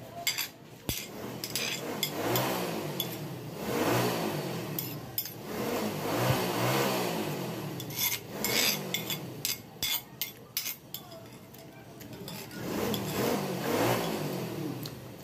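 A spoon clinking and scraping on a ceramic plate as a meal is finished, several short clicks at a time. Three times a motor vehicle engine revs up and fades.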